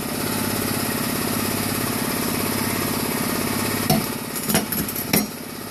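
Sandblasting cabinet running: a steady hiss of abrasive blasting over the drone of the machinery. A few sharp knocks come about four to five seconds in, and the noise drops a little just before the end.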